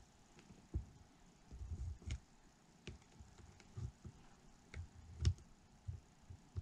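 Faint, irregular clicks and light knocks of a soldering iron and 18650 lithium-ion cells being handled on a bench, with a louder knock a little after five seconds.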